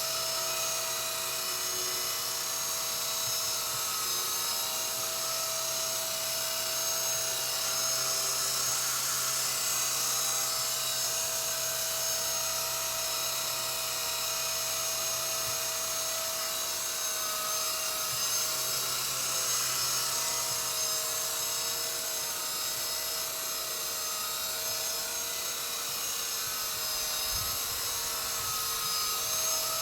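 Walkera V120D02S micro RC helicopter hovering: a steady high-pitched electric motor whine with rotor buzz, the pitch wavering slightly in the second half as the motor speed adjusts.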